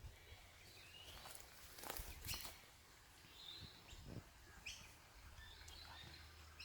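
Faint bird chirps, short and scattered, with a couple of soft clicks about two seconds in.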